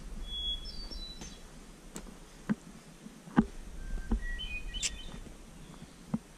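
Wild songbirds calling: a few short high whistled notes about half a second in, then a quick run of stepped notes around four to five seconds in. A few short knocks, the loudest a little past three seconds, sound over the bird calls.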